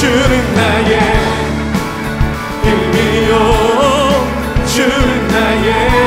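Live worship band playing a slow Korean worship song: singers holding long, wavering notes over acoustic guitar and a steady bass.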